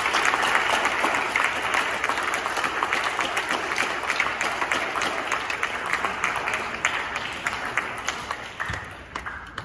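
Audience applauding, a dense patter of many hands clapping that thins out and dies away over the last few seconds.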